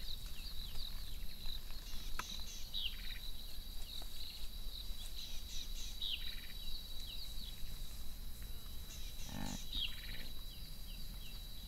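Outdoor bush ambience: many short, falling bird chirps over a steady high-pitched insect drone, with a low rumble underneath. One lower, louder animal call comes about nine and a half seconds in.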